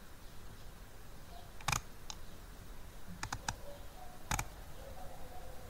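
Computer mouse clicks, a few at irregular intervals: one about a second and a half in, a quick run of three a little past the middle, and a louder one just after that, over faint background hiss.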